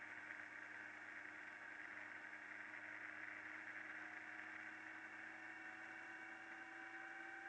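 Faint sound of a touring motorcycle riding at road speed: a steady engine hum under wind and road noise, the engine note rising slowly over the last few seconds.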